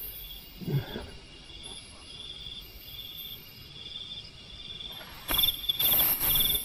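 Night insects, crickets, chirping in short high trills that repeat about twice a second. About five seconds in, a loud rustling noise without pitch takes over.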